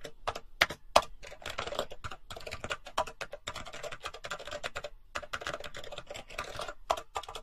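Typing on a computer keyboard: a quick, uneven run of key clicks, several a second.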